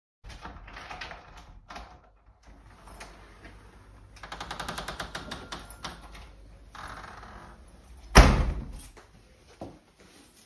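A front door being worked open, with a fast clicking rattle at the lock and latch, then shut with a loud bang about eight seconds in.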